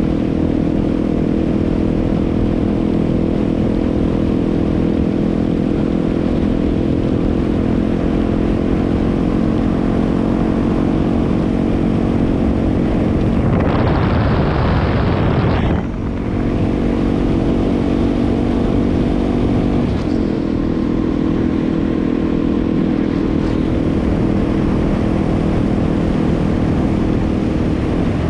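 Yamaha WR250R's single-cylinder engine running at a steady cruising speed, heard from on board the bike. About halfway through, a loud rush of noise lasting about two seconds passes over the engine note, and a little later the engine note shifts slightly.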